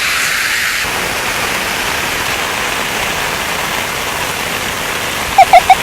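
Steady heavy rain, an even hiss. Near the end, four short, loud, high-pitched squeals come in quick succession.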